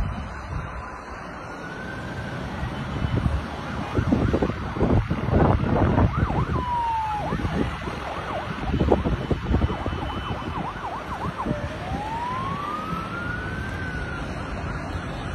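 Wind gusting over the microphone, loudest in the middle. Under it a siren wails in slow rising and falling glides, clearest near the end.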